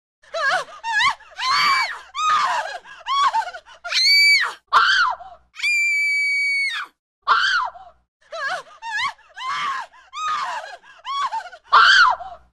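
A woman screaming: a run of separate short, high shrieks, each rising and falling in pitch, with one longer scream held at a steady pitch about six seconds in.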